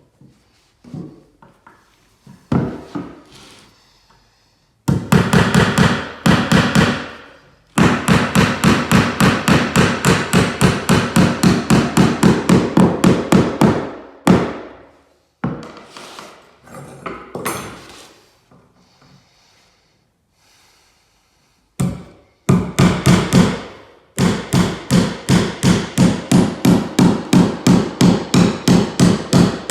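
Hammer striking in quick runs of even blows, about five a second: a short run about five seconds in, a long run of some six seconds, and another starting about 22 seconds in. Softer scattered knocks come between the runs.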